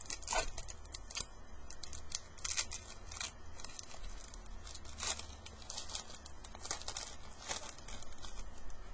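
Stack of Upper Deck Victory hockey trading cards being handled and flipped through: a string of quick, irregular papery swishes and flicks.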